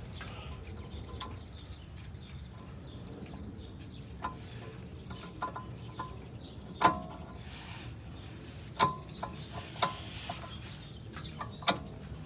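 Metal brake pads being handled and fitted into a rear brake caliper bracket: a scattering of sharp metallic clicks and knocks, about six in all, the loudest about seven seconds in.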